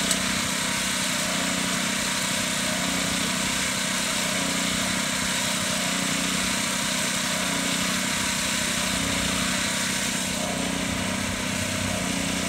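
Small gasoline engine running steadily at an even speed, with one sharp click at the very start.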